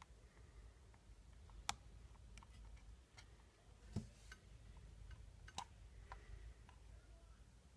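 Near silence broken by a few faint clicks and a soft knock about halfway through, from handling a Ring video doorbell and wiggling its charging cable.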